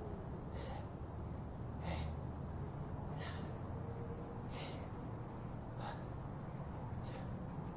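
A man breathing hard, with sharp, rhythmic breaths about every second and a half, winded from a long set of push-ups and squats.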